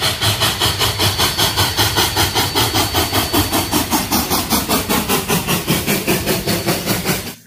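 Cumbres & Toltec No. 487, a K-36 narrow-gauge steam locomotive, passing close while pulling a train, its exhaust chuffing in a rapid, even beat of about five a second. The sound cuts off suddenly at the very end.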